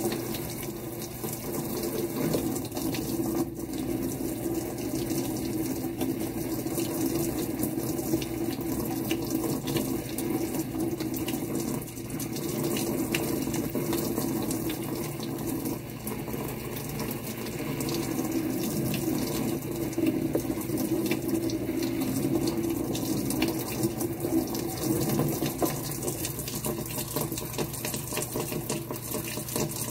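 Kitchen faucet spraying water over a pleated air filter held in the stream, the water splashing off it and draining into the sink. Steady running water that rises and falls a little in level.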